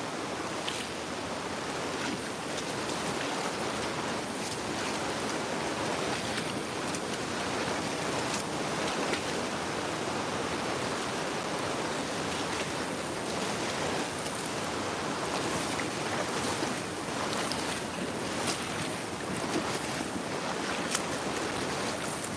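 Floodwater rushing steadily past, with irregular splashing from rubber boots wading through it.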